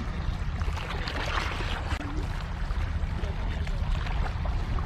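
Steady wind buffeting the microphone, with the wash of harbour water against the rocky shore.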